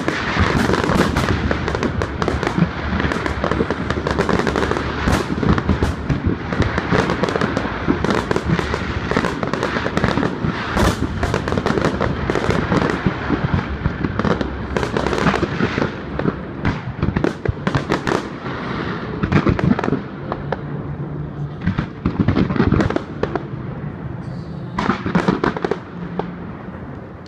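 Fireworks going off in dense, rapid bangs and crackles, thinning to scattered bangs after about twenty seconds and fading near the end.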